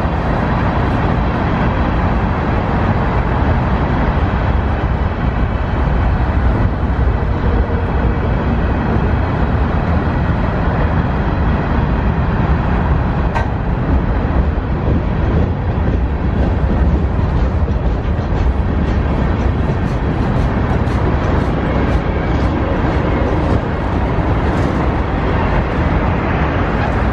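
Cars of a Norfolk Southern mixed freight train, tank cars and covered hoppers, rolling past: a steady, loud rumble of steel wheels on rail. Sharp wheel clicks grow more frequent in the second half.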